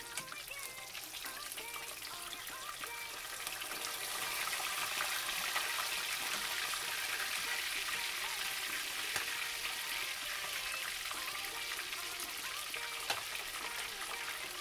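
Tilapia pieces frying in hot oil in a stainless steel skillet: a steady sizzling crackle that grows louder about four seconds in, with a single sharp click near the end.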